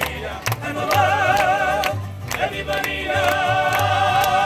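Live mariachi band playing and singing: voices and violins with vibrato over rhythmic strumming and a stepping bass line. The sustained melody breaks off briefly about two seconds in, then comes back in.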